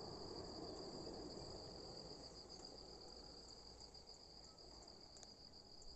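Faint, steady high-pitched chirring of insects, a continuous trill.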